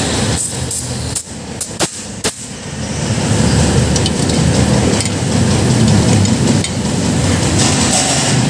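A few sharp metallic clinks in the first two and a half seconds as a spanner works on the brass safety valve of a stainless steel pressure cooker, which is being set to vent at 3 bar. A steady low rumble runs underneath and grows louder after the clinks.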